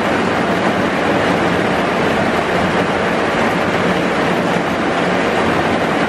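Heavy rain falling steadily, heard from under a bus shelter.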